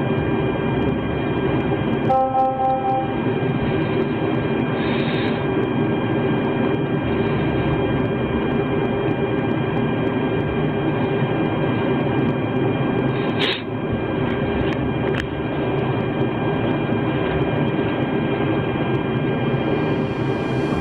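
Police body-camera audio: a steady rumble and hiss with faint constant electronic tones, a brief tone about two seconds in and a click about two-thirds of the way through.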